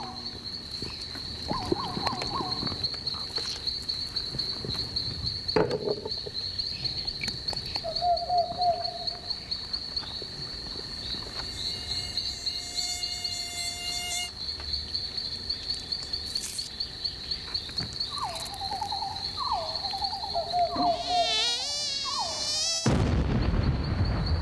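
Crickets chirping in a steady pulsing trill. Near the end a mosquito's whine wavers up and down, then is cut off by a sudden loud blast: the mosquito exploding after biting a man who ate hot Tabasco sauce.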